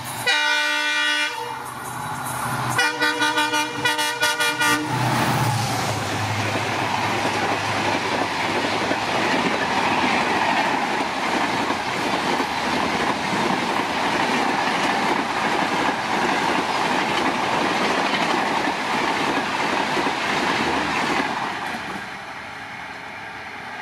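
WDP-4D diesel locomotive sounding two horn blasts as it approaches, then passing at about 130 km/h with a short low engine rumble, followed by a long, loud rush of coaches running over the track that drops away about 21 seconds in as the train recedes.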